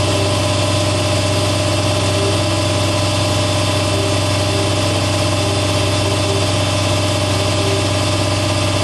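Air compressor running steadily, a loud even motor hum with a strong low drone.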